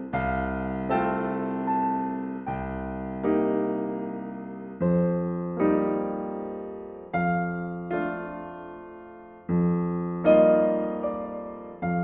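Background music: slow, soft piano chords, each struck and left to fade before the next, about one every second or so.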